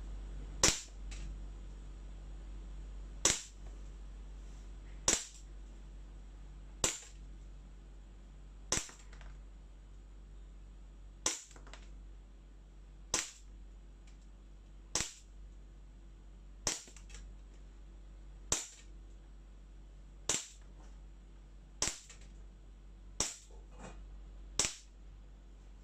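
VFC G42 gas-blowback airsoft pistol firing about fourteen single shots at a steady pace, roughly one every one and a half to two seconds, each a sharp crack, a few followed closely by a fainter click.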